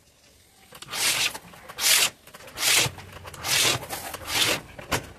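A knife scoring a decorative laminate sheet along a wooden straightedge: five scratchy strokes about a second apart, then a short sharp click near the end.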